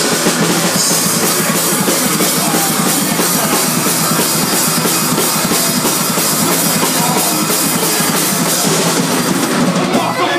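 Punk rock band playing live: drum kit with bass drum and cymbals, electric guitar, and vocals sung into a microphone, loud and dense throughout.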